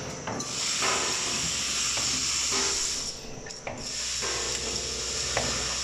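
Cupped-head weld pin making machine running, giving a loud steady high hiss with a few short knocks; a steady hum-like tone joins in about four seconds in.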